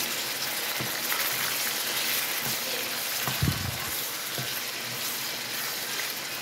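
Onions and chopped tomatoes sizzling in oil in a frying pan as they are stirred with a wooden spoon, a steady hiss with a low bump about three and a half seconds in.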